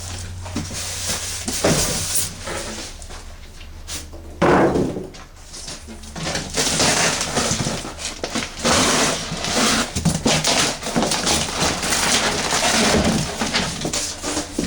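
Packaging being handled: irregular rustling and scraping swishes, with a sharp knock about four and a half seconds in.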